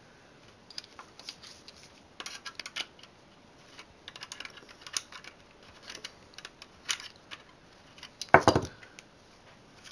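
Scattered light clicks and clinks of small metal parts and tools being handled while an RF modulator is taken apart, with one louder knock about eight seconds in.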